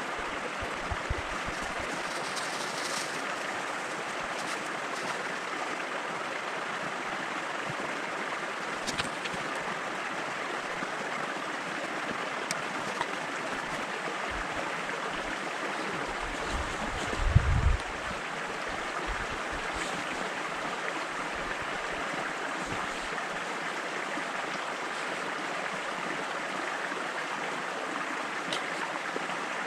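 Steady rush of running water, even throughout, with a brief low rumble on the microphone at about seventeen seconds.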